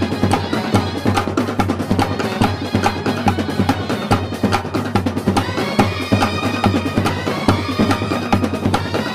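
Brass band playing: a fast, steady beat on snare drum, tenor drums and a large bass drum, under trumpets and other horns playing a melody. The horns grow stronger about halfway through.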